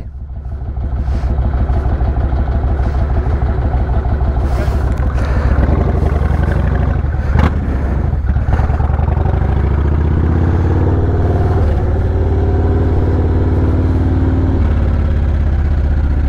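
Cruiser motorcycle engine pulling away and riding slowly across a wooden-plank bridge, the tyres clattering over the boards. A knock comes about halfway through. The engine note climbs steadily from about ten seconds in, then drops sharply near the end as the throttle eases.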